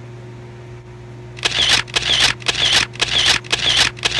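A phone's camera shutter sound repeated about six times in quick succession, roughly two a second, starting about a second and a half in.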